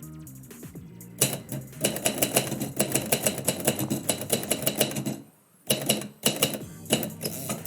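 Typewriter keys striking in a fast run of typing lasting about four seconds, a short pause, then another burst of keystrokes near the end.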